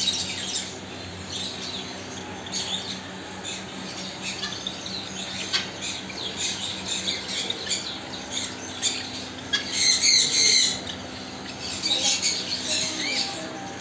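A group of pet birds chirping and squawking: a busy, overlapping mix of short high calls, loudest about ten seconds in.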